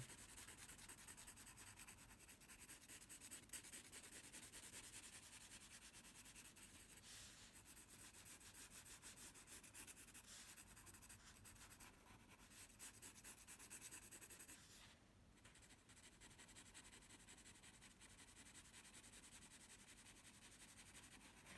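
Pencil shading on drawing paper: faint, rapid back-and-forth scratching strokes as the lead fills in dark areas, with a short pause past the middle.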